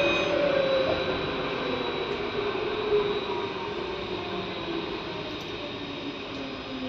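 Interior of an Alstom Citadis tram running: wheel-and-rail rumble with an electric traction-motor whine that falls steadily in pitch, and the overall sound eases off as the tram slows down.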